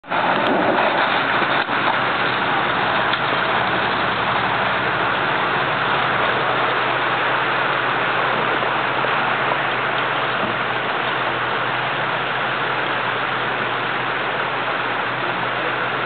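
Land Rover Defender 90's engine running steadily as it crawls through a shallow, rocky creek, under a continuous rush of flowing water.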